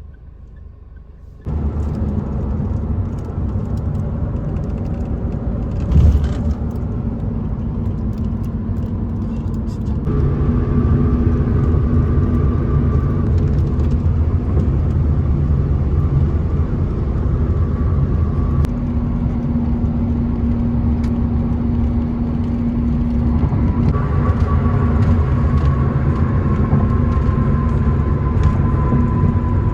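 A vehicle engine running with a steady low rumble that starts abruptly about a second and a half in, with a faint whine that slides slowly lower near the end.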